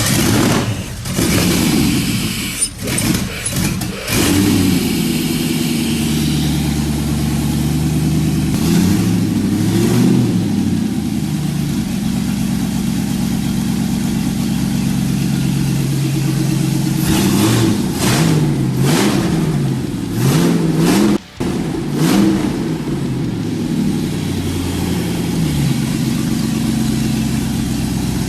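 Freshly swapped GM LS V8 engine running. It runs unevenly for the first few seconds, then settles into a steady idle, revved up and back down several times in the middle.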